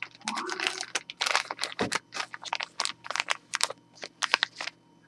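Small clear plastic bag crinkling as it is handled, a quick string of sharp rustles.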